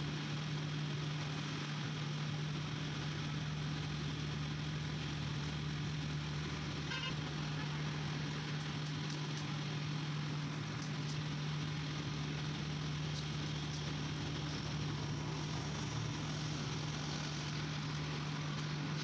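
Steady low mechanical hum with a hiss over it.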